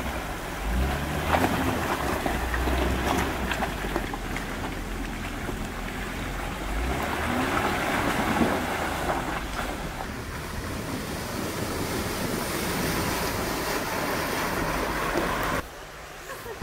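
Jeep Wrangler driving through a shallow stream: water splashing and churning around the tyres over the engine's steady running, with low rumbling wind on the microphone. The sound drops suddenly near the end.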